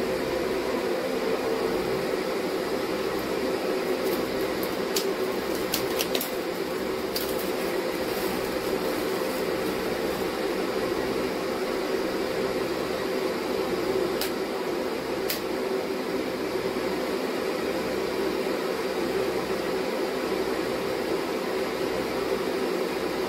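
A steady mechanical whirring hum, with a few faint ticks about five to seven seconds in and again around fourteen and fifteen seconds.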